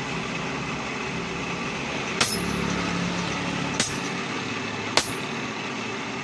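Hammer striking iron three times, sharp metallic blows with a brief high ring after each, over a steady mechanical running noise.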